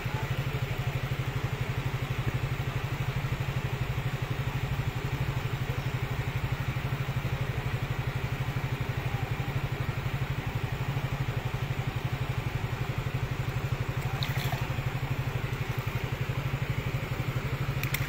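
Small motorcycle engine running steadily with a fast, even pulse as the bike is ridden.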